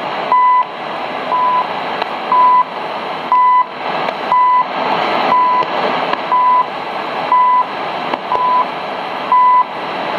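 CHU time-signal broadcast on 7850 kHz heard through a shortwave receiver: a short 1 kHz beep, about a third of a second long, once every second, marking the seconds. A steady hiss of shortwave static runs underneath.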